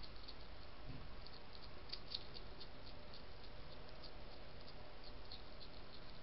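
European hedgehog crunching dry kitten biscuits from a bowl: quick, irregular crisp crunches, several a second, over the steady hiss of the trail camera's microphone.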